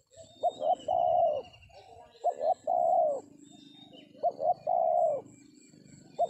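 Spotted dove cooing: three repeated phrases about two seconds apart, each two short notes followed by a longer, falling coo. Fainter chirps of other small birds are in the background.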